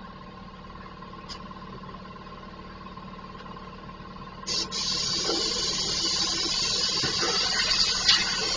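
Compressed air hissing from an air-hose blow gun aimed into a car's engine bay. It starts suddenly about halfway through and carries on steadily, over a low, steady background hum.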